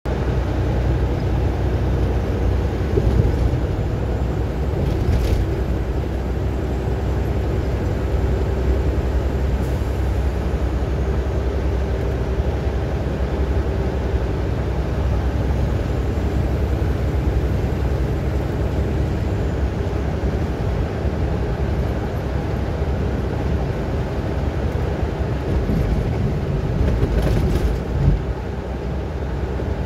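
Steady low engine and road rumble heard from inside a vehicle's cab cruising at highway speed, with a faint steady hum over it.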